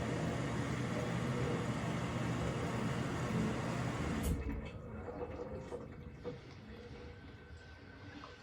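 Samsung washing machine draining: water rushing out under the drain pump, dropping away sharply about four seconds in to a quieter steady hum.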